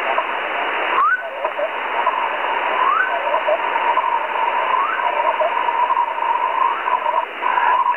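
A whistle received on single-sideband through the QO-100 satellite's narrowband transponder: a steady tone over narrow, hissy radio noise, with short rising chirps about one, three and five seconds in. The tone holds its pitch without drifting, the sign that the station's transmit and receive clocks are calibrated to each other.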